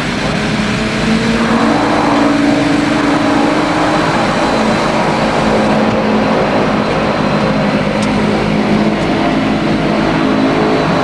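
Floatplane engine and propeller running steadily as the plane taxis away from the dock, heard from inside the cabin as a loud, even drone.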